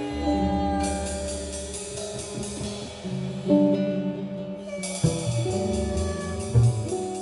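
Live small-group jazz: archtop guitar, upright double bass and drum kit with cymbals playing together. The cymbals drop out briefly around the middle and come back.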